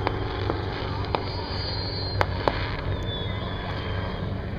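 Helicopter's steady rotor and engine drone while fireworks carried on it go off. A handful of sharp cracks and high whistles falling slowly in pitch sound over the drone.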